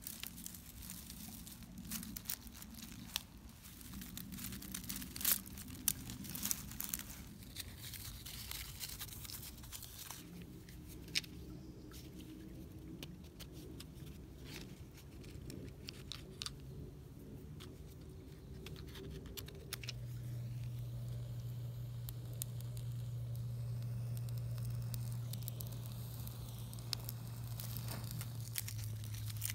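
Dry twigs and silver birch bark being handled and torn up by hand for tinder, crinkling, with many sharp clicks in the first half that thin out later. About two-thirds of the way through a steady low hum comes in and stays.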